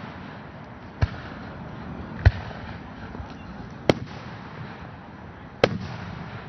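Aerial firework shells bursting: four sharp bangs spread over a few seconds, the last with a short echoing tail.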